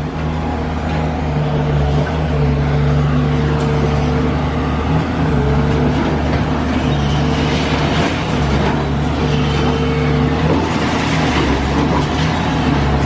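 Large diesel excavator engine running steadily under load, its drone dipping briefly a few times, with heavy demolition machinery working.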